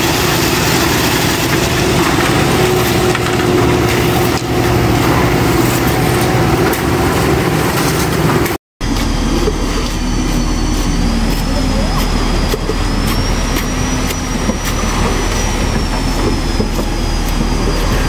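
Concrete mixer truck's engine running steadily as wet concrete is fed down its chute into strauss pile holes, with workers' voices over it. The sound breaks off for a moment about halfway through, then goes on as a steady machine hum.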